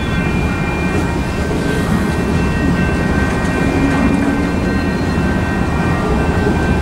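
Freight train tank cars rolling past at a steady pace, their wheels on the rails making a continuous heavy rumble, with a few thin, steady high tones held over it.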